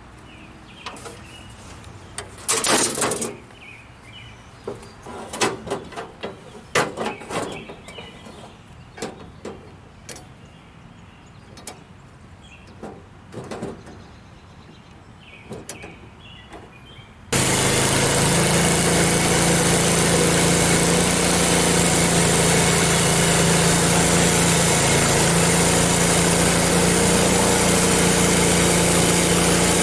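Scattered knocks and clanks of hard objects being handled, then, a little past halfway, the Frontier OS23 sawmill's small gasoline engine is suddenly heard running at a steady high speed.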